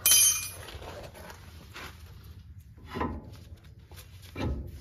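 New front brake rotor and hub on a Ford F-150 turned by hand over fresh pads to check that it rolls freely and clears the dust shield: a sharp metallic sound as it starts, then quieter rubbing with two softer swishes near the middle and end.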